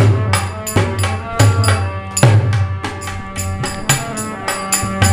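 Instrumental break in a Hindi devotional bhajan: a drum strikes a steady beat under held tones from a melody instrument.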